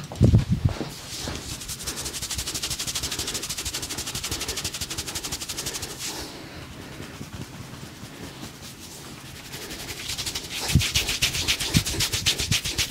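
Rapid, even percussive massage tapping on the body, about ten strikes a second, in two runs with a pause between. A few heavier thumps come near the start and again about eleven seconds in.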